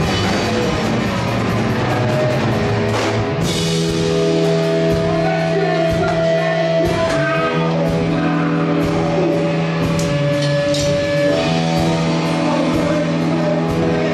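A rock song with a singer's voice over guitar and drums, with long held notes.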